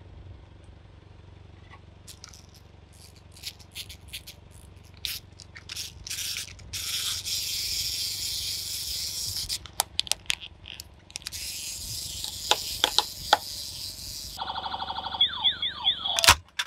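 Car tyre rolling over and crushing pop-it toys: scattered sharp plastic pops and cracks, with two long stretches of scraping. Near the end comes a fast electronic pulsing with quick falling chirps, cut off by a sharp thump.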